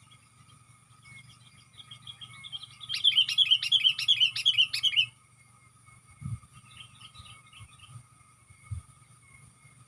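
Sooty-headed bulbul (kutilang) calling: a loud, rapid run of chirps lasting about two seconds, with softer chirping just before and after it. Two short low thumps come in the second half.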